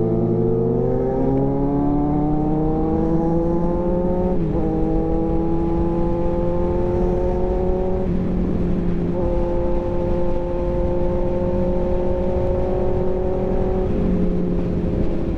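Kawasaki Z900's inline-four engine pulling on the highway, rising in pitch for about four seconds, dipping briefly, then running at a nearly steady pitch at cruising speed. Heavy wind rush on the microphone beneath it.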